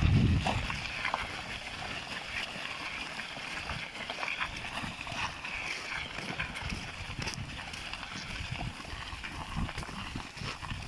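Hooves of a draft mare clopping on a gravel and mud road as she pulls two loaded wooden farm wagons, with the wagons rattling and their wheels crunching on the stones. A brief low rumble comes right at the start.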